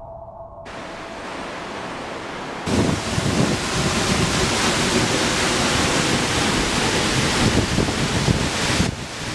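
Waterfall crashing down, heard from the rock overhang behind the falling water: a steady rushing noise. It starts faint under a second in, jumps much louder about two and a half seconds in, and cuts off suddenly at the end.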